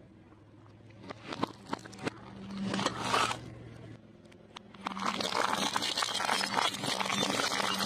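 Car tyre slowly rolling over and crushing brittle objects. Scattered cracks build to a crunch about three seconds in, then dense crackling and crunching from about five seconds on.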